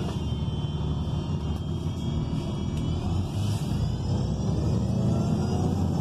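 Inside a 2019 ENC Axess BRT bus under way: the low rumble of its rear-mounted Cummins Westport L9N natural-gas engine, growing slightly louder as the bus picks up speed, with a faint high whine rising in pitch about halfway through.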